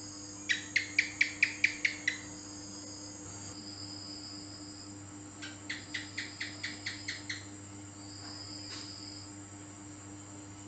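House gecko (cicak) calling: a quick run of about ten sharp chirps, then a second run of about eight a few seconds later, over a steady background drone.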